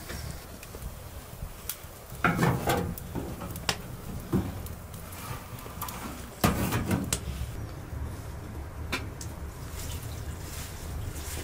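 Wood fire crackling in a sheet-metal stove's firebox. A metal clatter comes about two seconds in, and the stove's metal door is swung shut with a clank about six and a half seconds in. Near the end, water starts pouring from a kettle.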